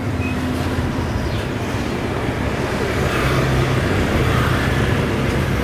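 Steady street traffic noise with the low hum of vehicle engines, a little louder from about three seconds in.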